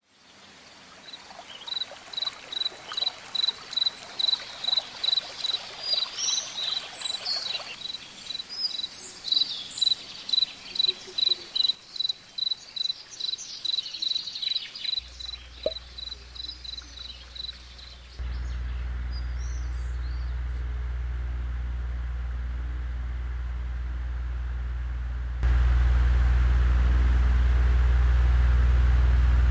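Crickets chirping steadily at about three chirps a second, with a few higher bird chirps over them. Partway through, the chirping gives way to a steady low hum and hiss that steps up louder near the end.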